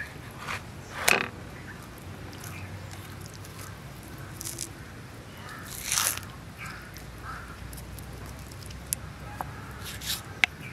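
Kitchen knife cutting raw pork ribs on a wooden chopping block: a few separate short cutting and handling sounds, the loudest about a second in, with small sharp ticks near the end.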